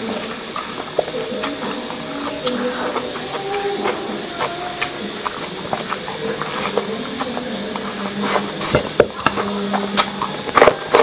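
Close-miked mukbang eating sounds: instant noodles slurped and chewed wetly, with many sharp mouth clicks and smacks that come thicker and louder in the last few seconds.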